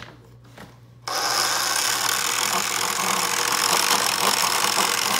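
A battery-powered toy machine switched on about a second in, its small motor then running with a steady, gritty whir.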